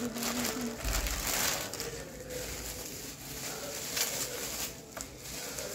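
Plastic courier mailer and bubble wrap crinkling and rustling as hands open the package and pull the wrapped item out, in irregular crackles that are loudest in the first couple of seconds.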